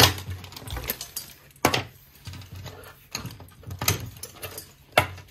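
Leather dog collars being handled on a wooden table: their metal buckles and D-rings clink and knock against the tabletop in several separate, sharp knocks.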